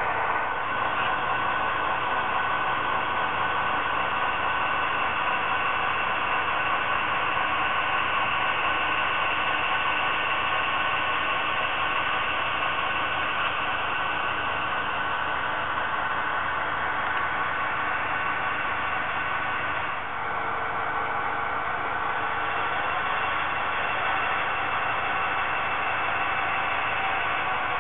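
HO-scale model diesel locomotives running along the track: a steady mechanical whir and hiss with several steady tones in it, dipping briefly about twenty seconds in.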